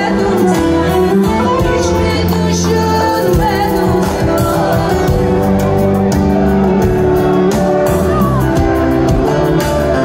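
Live amplified music through a PA: a woman singing over a small band with a wind instrument and a bowed string instrument. It is steady and full throughout, with a wavering melody line.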